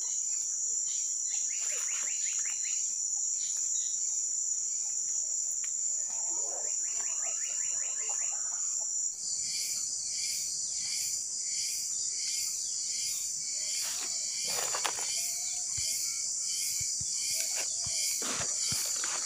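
Insect chorus: a steady high-pitched buzz that switches about nine seconds in to a pulsing, slightly lower drone. A few short rattles and rustles sound over it.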